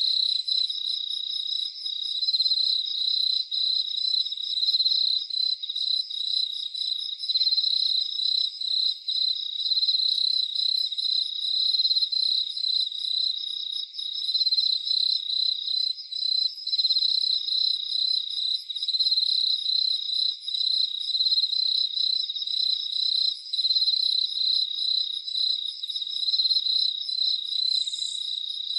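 Crickets chirping in a dense, continuous night chorus: overlapping, high-pitched pulsing trills, with a fainter, even higher pulsed call coming and going above them.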